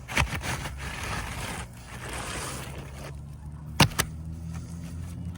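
Asphalt roof shingles being handled and scraped, with a sharp knock at the start and two sharp loud knocks in quick succession near the end, over a steady low hum.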